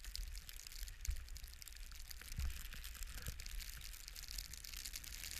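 Blizzard wind buffeting the microphone: a steady hiss with low rumbling gusts, strongest about a second in and again a little past two seconds.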